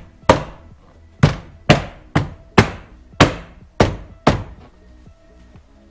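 A hand striking a plastic door trim panel about eight times in four seconds, knocking its retaining clips into the door, then stopping. Faint background music runs underneath.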